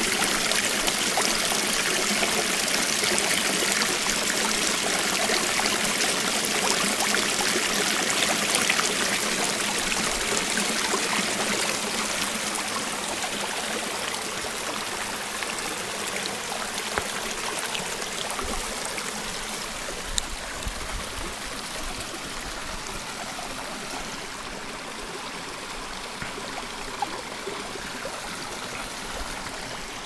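Small mountain stream running over rocks and a low cascade: a steady rush and trickle of water that slowly grows quieter.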